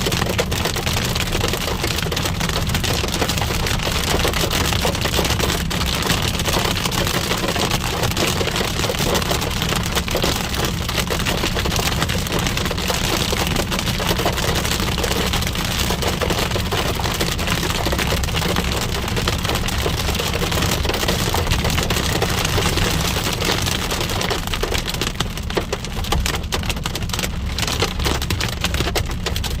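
Hail and rain pelting a moving car, a dense steady patter of countless small hits, over a steady low rumble.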